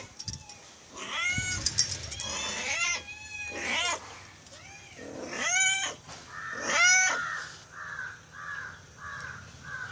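Young orange cat meowing loudly and repeatedly, about six drawn-out meows, begging for food. In the second half a row of short hoarse calls repeats about twice a second in the background.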